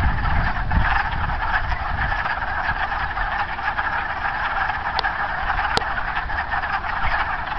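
Chorus of many wood frogs calling together, a dense, continuous mass of short clucking calls, with a low rumble underneath.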